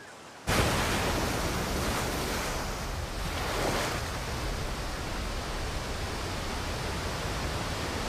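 Heavy ocean surf in rough seas, big waves breaking one after another. It comes in suddenly about half a second in, with louder crashes around two and three and a half seconds.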